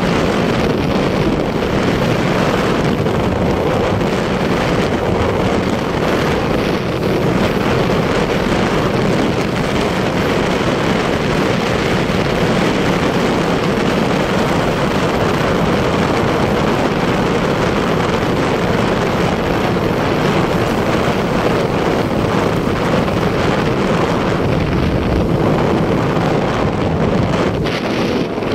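Steady wind rushing over the microphone, mixed with the engine and road noise of a vehicle moving at speed.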